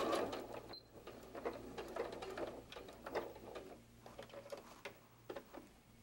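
Domestic electric sewing machine stitching a seam in short, stop-start runs, going quiet for about a second near the end.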